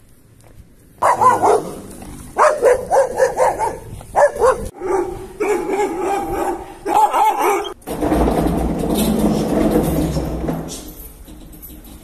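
Dog barking in quick runs of short barks, breaking off abruptly about eight seconds in; a steadier, denser sound follows.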